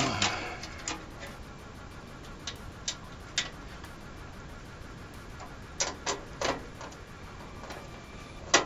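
Scattered sharp metallic clicks and taps, about nine in all with a quick cluster around six seconds in: screws and a screwdriver working against a computer case's metal standoffs while a motherboard is being fastened in.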